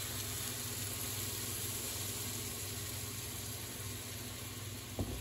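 Heavy whipping cream sizzling and starting to bubble in a hot frying pan with sautéed onions: a steady hiss, with a short knock near the end.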